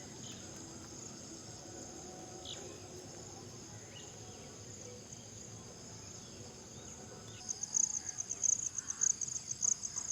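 Insects trilling in a steady high-pitched chorus. About three-quarters of the way in, a louder, rapidly pulsing high chirp starts up.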